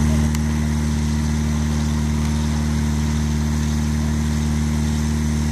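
Steady low droning hum of a running motor, held at several even pitches without change, slightly quieter from a moment in.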